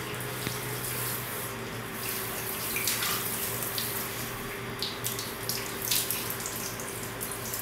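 Water running steadily from a hand-held hose onto a husky's wet legs and body and splashing on the tiled floor of a small bathroom, with a faint steady hum underneath.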